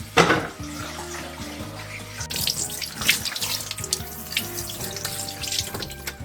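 Tap water running and splashing in a kitchen sink, with a sharp splash just after the start and heavier splashing in the second half, over soft background music.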